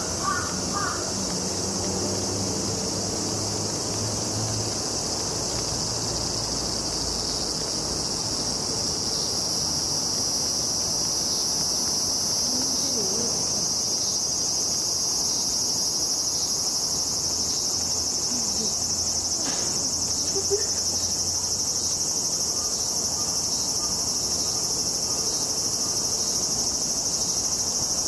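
Cicadas droning in a steady, high-pitched chorus that grows a little louder about a third of the way in.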